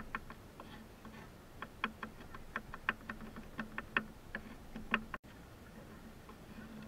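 Chef's knife chopping garlic on a wooden cutting board: quick, uneven knocks of the blade on the wood, about three or four a second, stopping about five seconds in.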